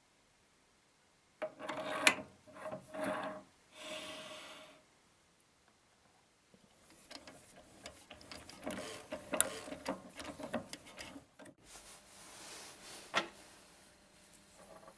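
A steel threading die in a hand-held holder cutting a thread onto a steel rod held in a lathe chuck, the chuck turned by hand. The cutting comes as uneven bursts of metal scraping and rasping, the first ones with a faint squeal, and later a run of quick scrapes and clicks. Near the end come a softer rustle and one sharp click.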